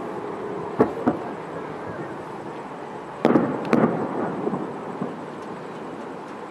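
Aerial fireworks shells bursting: two bangs about a second in, then a louder pair just past three seconds, each followed by a trailing rumble.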